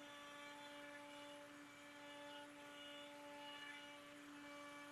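Near silence with a faint steady hum and a few higher overtones.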